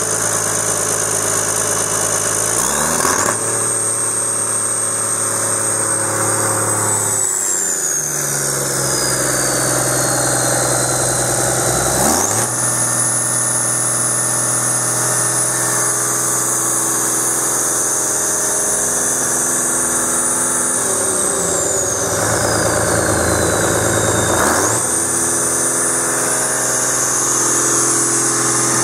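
Komatsu S6D95L-1 six-cylinder turbo diesel engine running, revved up from idle three times and held at high speed for several seconds each time, dropping back to idle between. A high turbo whistle rises and falls with the revs.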